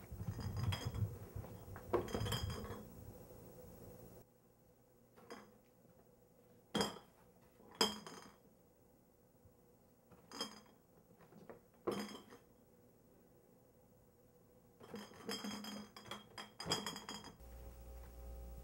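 Glass clinking: a run of sharp clinks, each with a short high ring, coming in flurries near the start and again near the end, with single clinks spaced a second or two apart in between.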